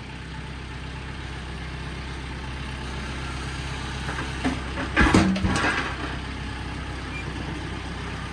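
Tractor engine running steadily while its loader forks set two pine logs onto a sawmill's log deck; about five seconds in the logs drop onto the deck with a few loud thuds.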